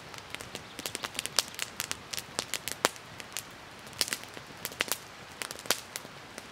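Wood campfire crackling and popping: sharp, irregular snaps several times a second, a few of them louder pops.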